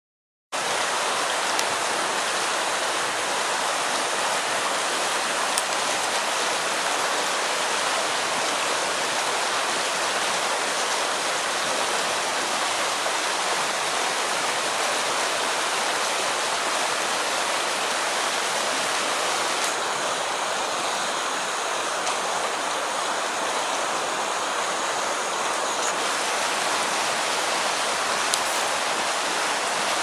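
Steady, even rush of falling and running water from a desert-canyon waterfall and its creek, with no let-up.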